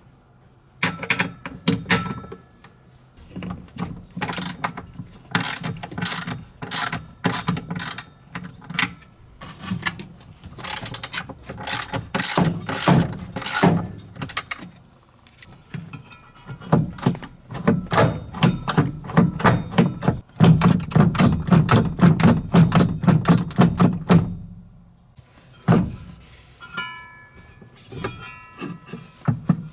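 Runs of rapid metallic clicks and knocks from hand work on a washing machine's belt drive, starting about a second in and stopping near the end, followed by a few scattered quieter clicks.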